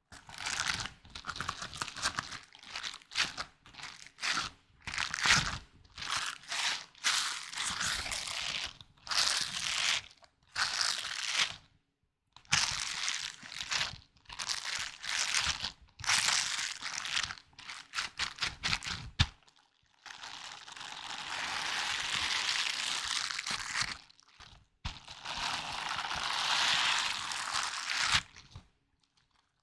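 Close-up ASMR trigger sounds from an object being handled: a quick run of short crinkling, crunching scrapes, then two longer continuous rubbing sounds, about 20 and 25 seconds in.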